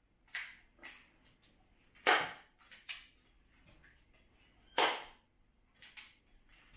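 Webley Alecto .177 multi-pump air pistol being handled and pumped: a run of small clicks and two much louder sharp strokes about two and a half seconds apart, which fit the two pumps that give this pistol full power.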